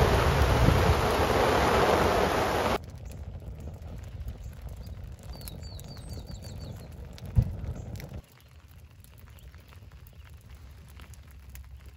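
Heavy rain pouring down, loud and steady for about three seconds before cutting off. Then a charcoal fire crackling faintly in a steel grill, with a short run of high chirps and a single sharp thump, before a further drop to quiet outdoor ambience after the rain has stopped.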